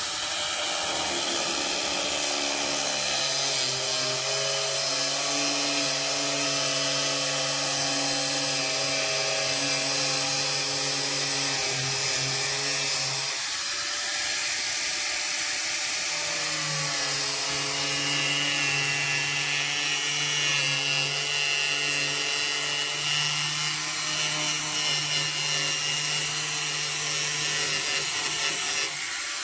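Angle grinder fitted with a cutting disc, running continuously as it cuts through excess fibreglass laminate along a boat's gunwale. Its steady whine sags and wavers for a few seconds about halfway through, then steadies again.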